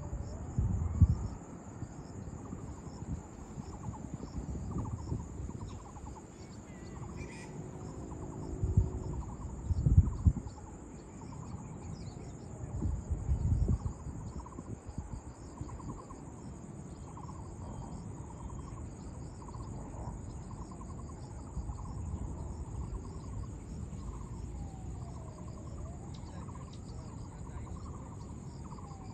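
Insects chirring steadily in the forest, one continuous high-pitched drone. A few low rumbles of wind on the microphone come about a second in and again between roughly eight and fourteen seconds.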